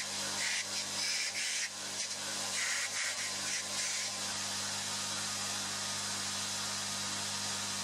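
Belt grinder running with a steady motor hum, its abrasive belt sanding thick Kydex plastic in short, uneven passes during the first few seconds, then running on with the piece lifted away.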